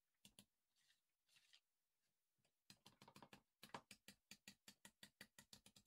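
Wire balloon whisk beating batter in a plastic mixing bowl: soft, quick, even strokes, about six a second, starting nearly three seconds in.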